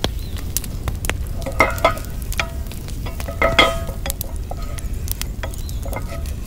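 Garlic sizzling in oil in a cast-iron pan while a wooden spatula stirs and scrapes it across the pan. Two louder scrapes, about a second and a half in and again near the middle, make the pan ring briefly. Sharp crackles from the wood fire under the grate run throughout.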